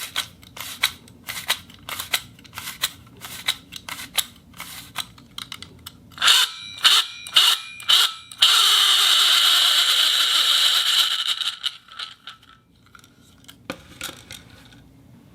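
Vintage reel mechanism clicking, a ratchet tick about twice a second, then a quicker run of louder, ringing clicks. It then spins freely as a steady whir for about three seconds, which dies away, and one last click comes near the end.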